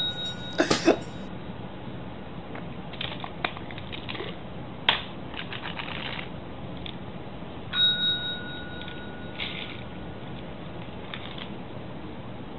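A desk call bell dings twice, once at the very start and again about eight seconds in, each ring held for a second or so as it fades. A few sharp clicks just under a second in are the loudest sounds, with scattered soft taps between.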